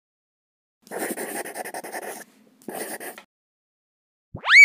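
Channel-intro sound effects: two scratchy, breathy noise bursts, then near the end a loud tonal sweep that rises and falls back in pitch.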